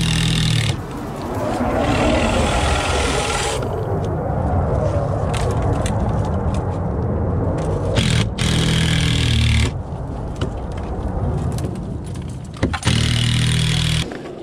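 Handheld cordless power tool working against the coop's wooden framing and metal strapping. Its motor runs loud and steady three times, at the start, about two-thirds through and near the end, with rough scraping and grinding between.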